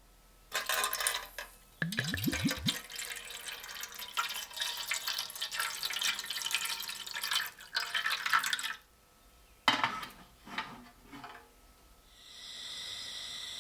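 Water running from a tap and splashing over metal, as when rinsing a blade, with a short squeak as it starts and a few clatters once it stops. About twelve seconds in, a steady motor hum starts up.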